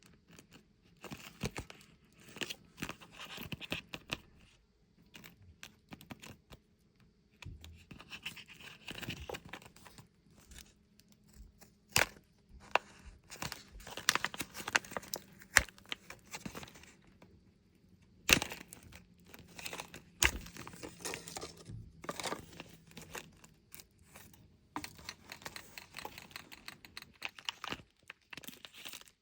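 Squishy-toy packaging being handled and torn open: irregular crinkling and crackling in bouts, with a few sharp, loud snaps about 12, 18 and 20 seconds in.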